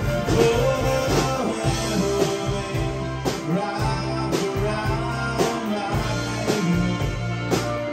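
Rock band playing live in a room: electric guitar, bass guitar and drum kit, with regular drum strikes over a repeating bass line.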